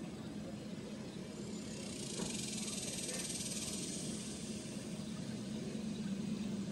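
Steady outdoor background noise: a low, even hum with a faint high hiss above it.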